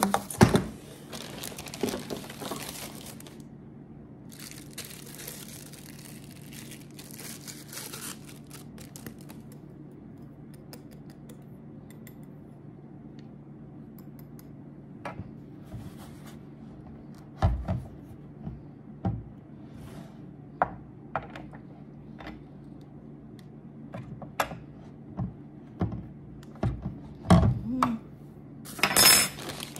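Plastic packaging crinkling and rustling as the sink parts are unwrapped, in two stretches over the first eight seconds, then scattered knocks and taps of plastic parts, with a louder rustle near the end. A low steady hum runs underneath.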